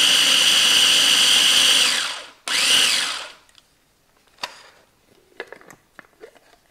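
Small electric food chopper running on its chop setting with a steady high whine as it purées a wet herb, butter and lemon mix. It cuts off about two seconds in, runs once more as a short pulse about half a second later, then gives way to light clicks and knocks of the plastic bowl and lid being handled.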